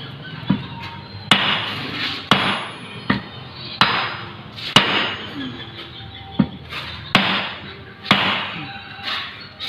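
A hammer striking metal transmission parts, about ten sharp blows at uneven intervals of roughly a second, some with a brief ring.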